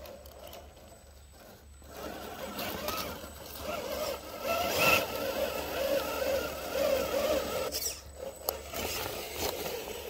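RC4WD Trailfinder 2 scale crawler truck's small electric motor and gearbox whining and wavering in pitch, with its tyres scraping and grinding over rocks. The sound starts about two seconds in, with a few sharp clicks near the end.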